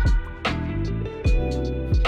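Background music with a steady beat: drum hits about every three quarters of a second over a held bass and sustained melodic notes.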